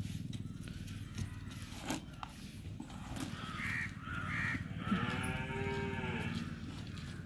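A drawn-out animal call about five seconds in, rising and then falling in pitch, just after two short bird calls.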